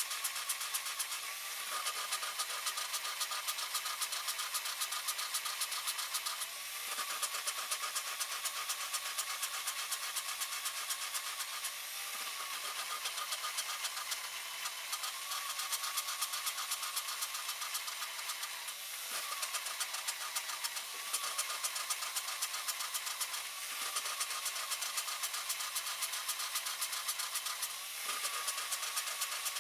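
Cadillac Escalade's 6.0-litre LQ9 V8 running steadily at idle, with a rapid, even ticking throughout and a brief dip every five or six seconds. The engine has a misfire on cylinder 2 that shows only at idle, suspected to come from a leaking intake valve.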